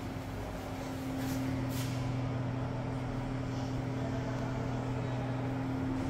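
Steady low mechanical hum with a constant drone, growing a little louder about a second in, with two faint light taps soon after.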